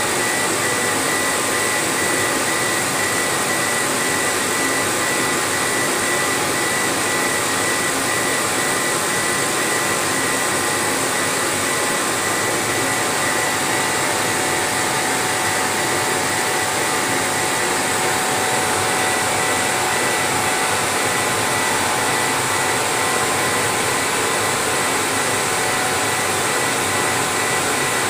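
Laser engraving machine running through a raster engraving job: a steady rush of air from its fans and blowers, with a faint steady high whine.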